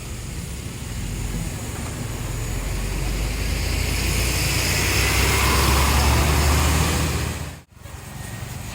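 Large tour bus pulling past close by, its diesel engine rumble and road noise growing steadily louder, then cut off abruptly near the end.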